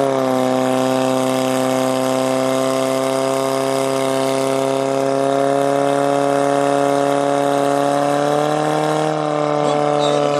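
Portable fire pump engine running flat out at a steady high pitch, pumping water from the tank through the attack hoses to the spray nozzles; the pitch rises a little and then dips slightly near the end.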